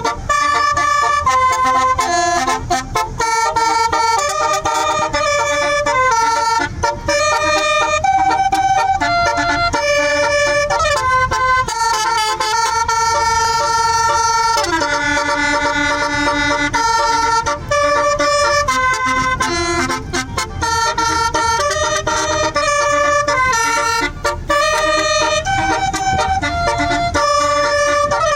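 Tour bus's 'basuri' telolet horn, a multi-trumpet air horn, playing a song as a melody of held notes that step up and down a few times a second, sometimes sounding two or three notes together. A low rumble runs underneath.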